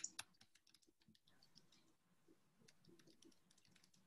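Near silence: room tone with faint scattered clicks, two sharper ones right at the start.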